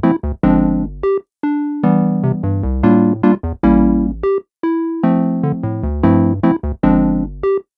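Background music: a bright electric piano tune over bass notes, a short phrase repeating about every three seconds with brief breaks between.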